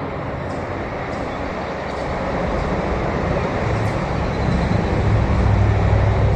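Experimental ambient music: a dense rumbling noise layer, with a low drone swelling in about four seconds in.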